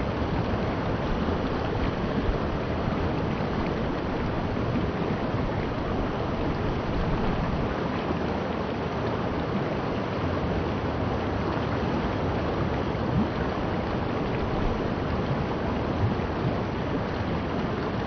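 Shallow river water rushing steadily over a rocky riffle.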